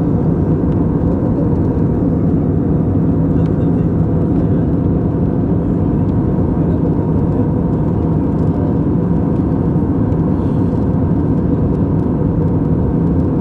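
Steady cabin noise of an Airbus A320 airliner in flight: the even, low rush of engine and airflow noise, unchanging throughout, with a faint steady tone over it.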